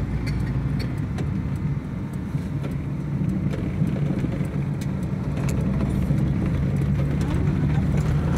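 A moving car's engine and road noise, a steady low drone that grows a little louder about halfway through, with scattered short clicks over it.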